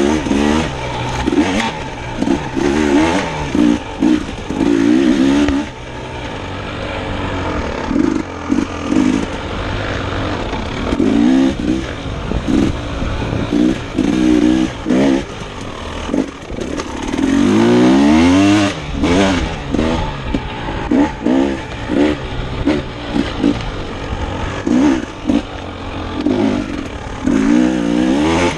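Dirt bike engine revving up and falling back again and again as it is ridden along a trail, with the pitch rising on each burst of throttle. The longest, highest rise comes a little past halfway.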